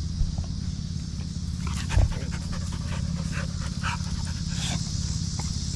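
Bully-breed dog panting hard, winded from a scuffle with another dog. There is a single thump about two seconds in.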